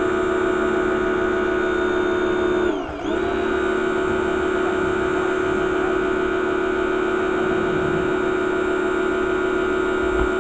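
Pressure washer running steadily with a high motor whine. About three seconds in, its pitch sags briefly and comes straight back up.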